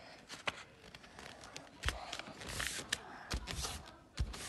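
A sheet of paper rustling and being creased as a hand presses the fold of a paper airplane flat against a table, with scattered crinkles and small taps at uneven intervals.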